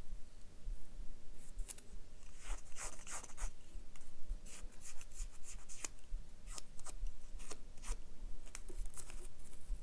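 Pink quilling paper strip drawn and rubbed along the shaft of a needle tool to soften and curve it: short, irregular scratchy swishes of paper, in uneven clusters.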